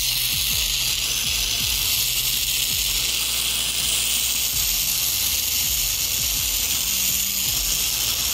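Oxygen–propane jewelry torch with an oversized homemade tip, its flame hissing steadily as it cuts through the thin steel wall of a container.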